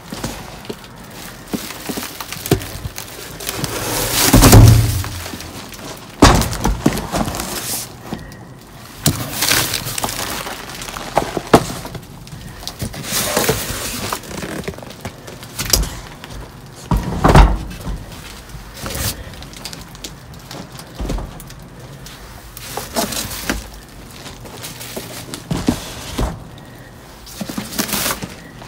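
Cardboard cases of food being lifted, dropped and shifted inside a dumpster: irregular thuds and knocks with rustling of plastic trash bags. The heaviest thud comes about four to five seconds in.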